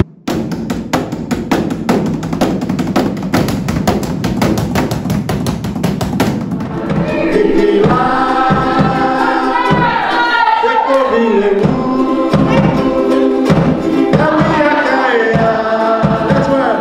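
Fast, even stick drumming on a plastic bin lid, in the style of Cook Islands drumming. About seven seconds in it gives way to a group singing a Cook Islands song over a steady drum beat.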